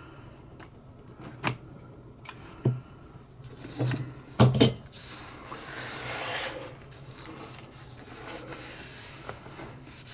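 Small tools and metal parts clinking and knocking on a workbench as it is tidied, with scattered single knocks and a pair of louder ones about halfway through. A stretch of rubbing or sliding noise runs just after them.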